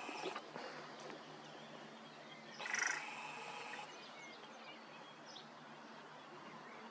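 A crow gives one short, harsh call about three seconds in, over quiet outdoor background with faint chirps of small birds.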